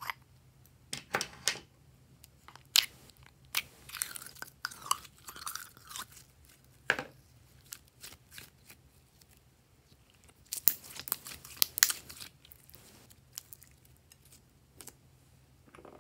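Hands stretching and squeezing gold glossy slime: sticky crackles, clicks and squelches in irregular clusters, busiest a few seconds in and again past the middle.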